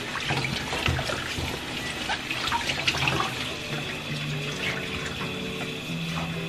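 Water running from a kitchen tap into the sink while a baking dish is scrubbed by hand under the stream, with splashing and small knocks of the dish.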